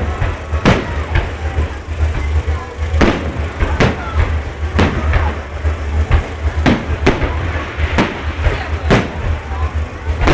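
Fireworks display: shells bursting in a string of irregular sharp bangs, roughly one or two a second, each with a short echoing tail, over a constant low rumble.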